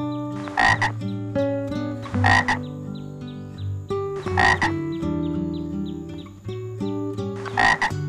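A frog croaking four times, each croak short and about two seconds apart, over background music of plucked notes.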